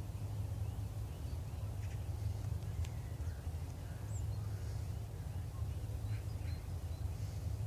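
Steady low rumble of an approaching electric locomotive.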